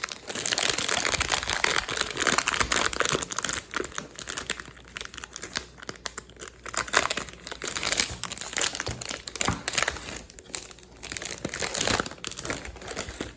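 Plastic wrapping crinkling and crackling in a dense, irregular run as it is handled and pulled off a new puzzle cube.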